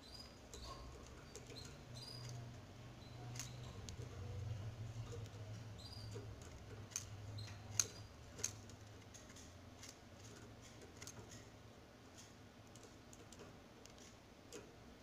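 Faint, scattered soft peeps and small clicks from a nest of week-old canary chicks, with two sharper clicks about eight seconds in, over a low hum.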